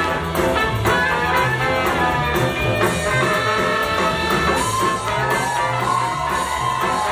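Jazz music with horns over a steady, repeating bass beat, with a long held note in the second half.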